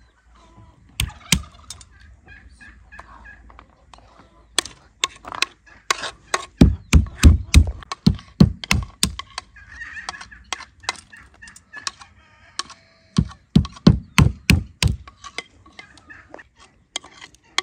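Walnuts being cracked with a stone on a wooden stump: repeated sharp knocks, with heavy runs of deep blows about a third of the way in and again past the middle. Chickens cluck between the knocks.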